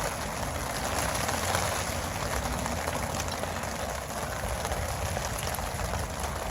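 Steady rain falling, a continuous hiss with fine patter of drops.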